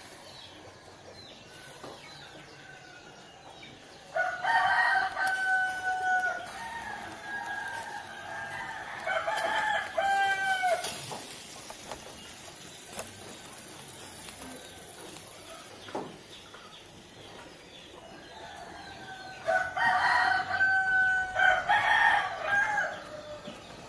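Rooster crowing several times, with long held calls from about four to eleven seconds in and again near the end.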